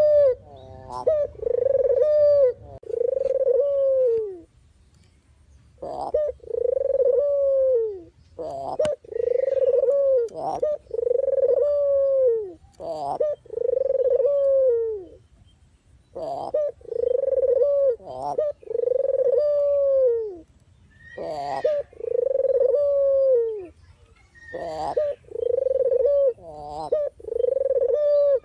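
Puter (Barbary or ringneck dove) cooing over and over. Each coo is a short note leading into a longer rolled note that falls away at the end, about a coo a second, in runs of several with brief pauses between.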